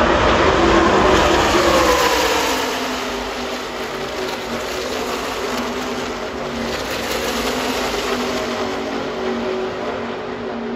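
A pack of NASCAR Truck Series V8 race trucks going past at speed: the engine drone drops sharply in pitch over the first few seconds as the pack passes and pulls away, then settles into a steadier, quieter drone from the field running on around the track.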